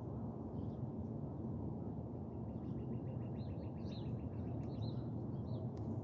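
A steady low rumble of unknown source runs under everything. Small birds chirp over it, with a rapid, evenly spaced ticking trill in the middle.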